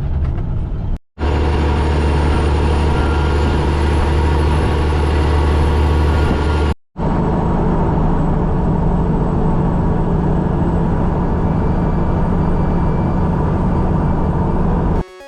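Heavy truck's diesel engine running while driving, a steady low engine drone. It cuts out briefly twice, about a second in and again about seven seconds in, and the engine note is deeper in the middle stretch than in the last.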